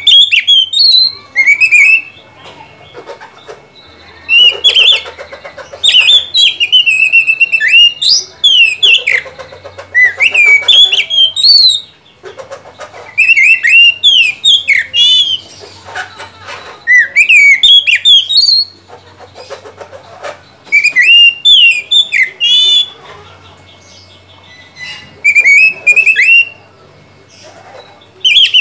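Oriental magpie-robin singing: loud, varied whistled phrases with quick rising and falling notes and trills. It sings in bouts of two or three seconds, with short pauses between them.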